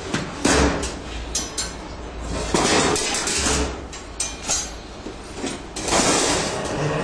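Irregular knocks and clattering, with a few louder stretches of rushing noise.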